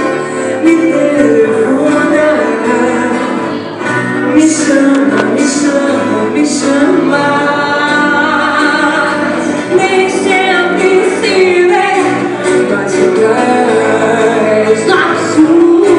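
A small live band playing a song: a woman sings lead into a microphone over guitar accompaniment, amplified through PA speakers in a hall.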